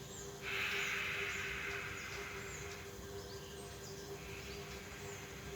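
A long breath blown out, starting about half a second in and fading out over about two and a half seconds: the complete exhalation that opens Nauli Kriya. Birds chirp in the background over a steady faint hum.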